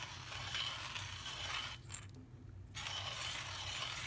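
Manual ceramic burr coffee grinder cranked by hand, grinding whole coffee beans with a gritty crunching rattle. The grinding pauses briefly about halfway through, then resumes.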